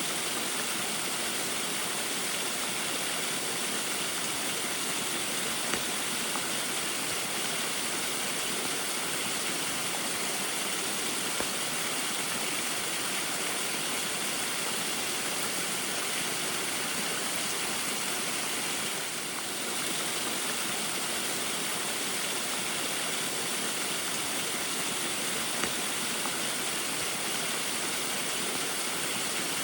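Small waterfall splashing steadily in the rain: a constant, even rush of water that softens briefly about two-thirds of the way through.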